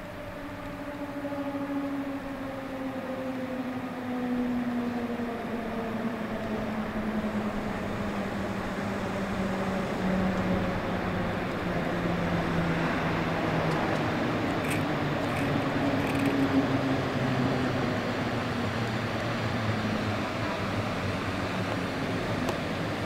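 Newag Griffin EU160 electric locomotive pulling a passenger train into a station and slowing, its traction drive whining in a pitch that falls steadily as it brakes, growing louder as it comes near. A few brief high squeaks about fifteen seconds in.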